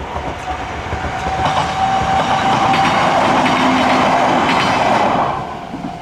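A Kintetsu electric train running past on the line, its rolling noise swelling and then dropping away about five seconds in.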